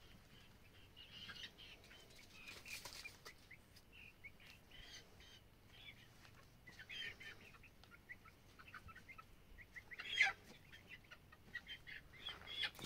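Chickens clucking and giving short high chirping calls at scattered intervals, with one louder call about ten seconds in.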